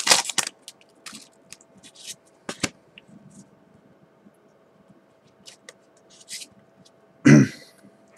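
Pokémon trading cards and a booster-pack wrapper being handled: scattered small rustles, clicks and scrapes, with one brief louder knock about seven seconds in.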